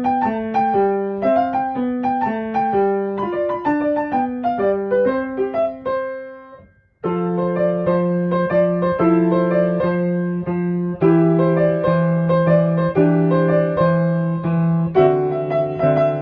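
Background piano music. One piece fades out about six seconds in, and after a moment of near silence another piano piece with held chords begins.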